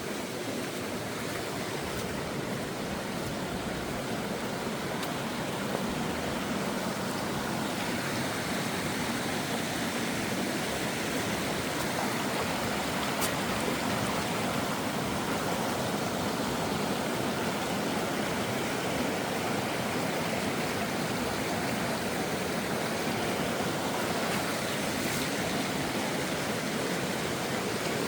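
Rushing water: a steady, even rush that grows a little louder about six seconds in.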